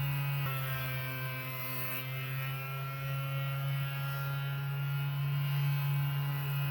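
Steady electric hum with a strong low drone and many higher overtones. About half a second in, the overtones drop in pitch and then slowly climb back.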